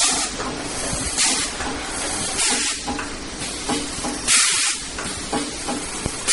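Automatic four-roll toilet paper film packing machine running through its cycle: short bursts of hissing air repeat every second or so over steady machine noise and scattered clicks and clunks. The longest and loudest hiss comes about two-thirds of the way through.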